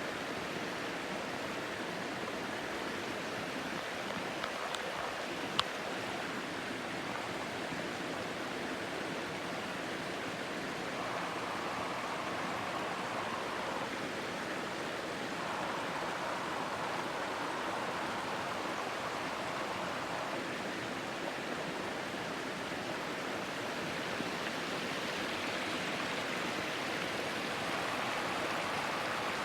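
Small waterfall with water rushing and splashing steadily, and two short clicks about five seconds in.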